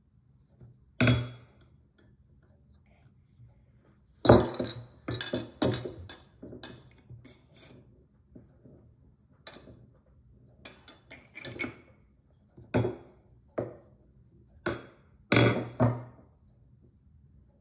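Irregular knocks, taps and clinks of clay-working tools, plastic cutters and a metal tool, being pressed, tapped and set down on a wooden tabletop, coming in clusters.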